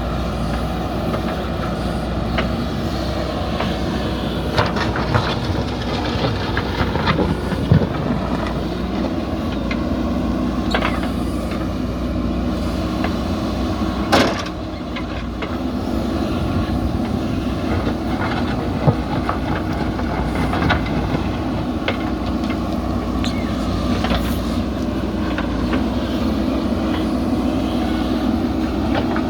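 JCB 3DX backhoe loader's diesel engine running steadily under work, with a few sharp knocks scattered through it.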